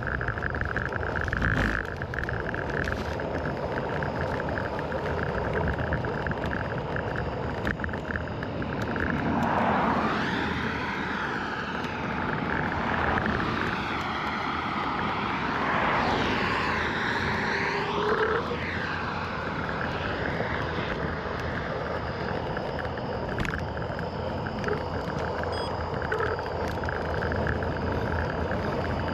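Steady running noise of a small road scooter underway at low speed. From about 9 to 19 seconds, traffic passes close by in a few rising and falling swooshes.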